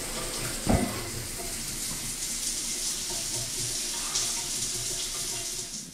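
Shower spray running steadily, an even hiss of water falling in a small shower stall. One dull thump about a second in.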